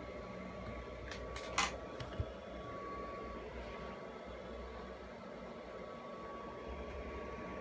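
Steady low hum with a faint thin tone, broken by a quick cluster of clicks about one and a half seconds in and one more click just after two seconds.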